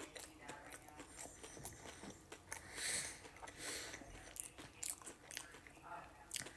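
Close-up mouth sounds of a person chewing a mouthful of spicy chicken sandwich on a soft bun: small wet smacks and clicks, with two short hisses around the middle.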